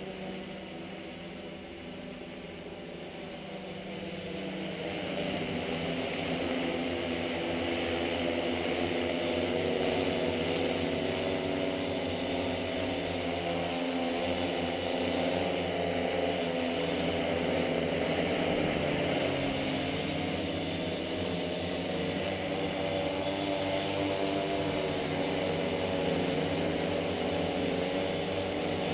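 Tarot T960 hexacopter's six electric motors and propellers buzzing steadily in flight, with small shifts in pitch. The sound grows louder about five seconds in as the craft comes in close.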